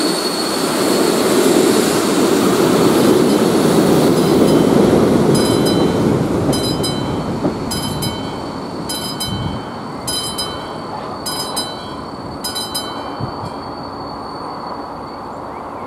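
Passenger train rolling past the level crossing, its wheel noise loud at first and fading away after about five seconds. The crossing's electric warning bell rings steadily through it.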